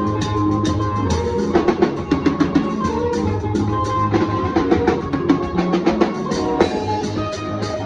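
Band music driven by a drum kit: quick snare and tom strikes with kick drum over a sustained bass line and held chords.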